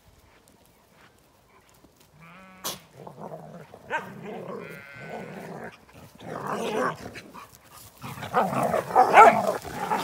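Sheep bleating with wavering calls a couple of seconds in, then dogs' rough play noises that are loudest near the end.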